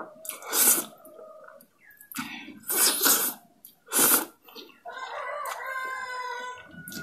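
Close-miked slurping of spicy instant noodles eaten off a fork, several loud slurps in the first four seconds. From about five seconds in, a quieter, drawn-out pitched call sounds for about two seconds.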